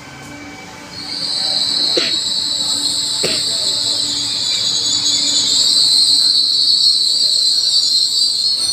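Trenitalia Pop (ETR 103) electric regional train pulling into the platform with a loud, sustained high-pitched squeal as it brakes to a stop, beginning about a second in and cutting out at the end. Two sharp clicks come through near the start of the squeal.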